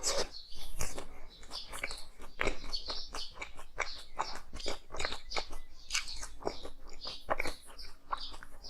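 Close-up biting and chewing of hard frozen ice: irregular crisp crunches and cracks, several a second.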